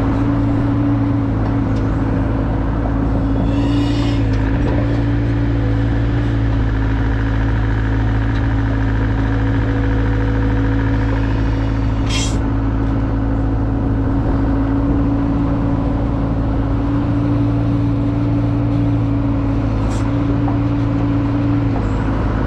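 Diesel engine of a working machine running steadily at a constant speed, with a brief hiss and a couple of short sharp clicks along the way.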